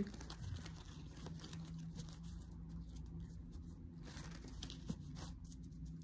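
Faint rustling and light clicks of tarot cards being handled, over a low steady hum.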